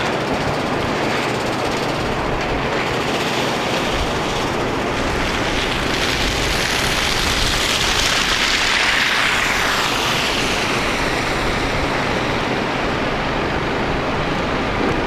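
Steady rushing street traffic noise in a snowstorm, swelling and easing about halfway through as a vehicle passes.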